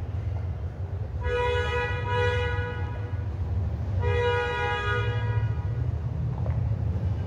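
A horn sounding two long, steady blasts, the first about a second in and the second about four seconds in, each lasting a second and a half or so, over a steady low rumble.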